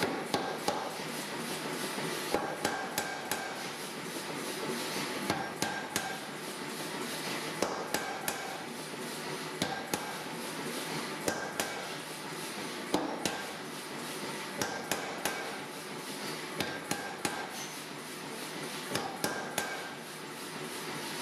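Hammer blows on steel against an anvil, coming in quick groups of three to five strikes with short pauses, over a steady hiss: hot round drive-shaft steel being forged down.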